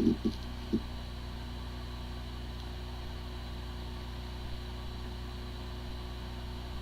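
Hard drive spinning with a steady, even hum and a few soft knocks in the first second. It sounds like a healthy drive, though this one has corrupted disk firmware and the computer cannot detect it.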